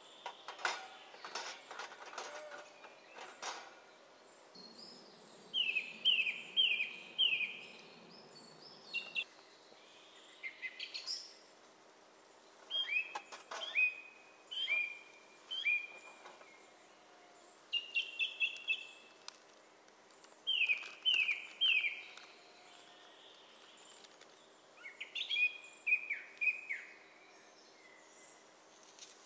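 A songbird singing in short phrases of three to five quick, downward-sweeping whistled notes, repeated every few seconds. A few sharp knocks come in the first few seconds.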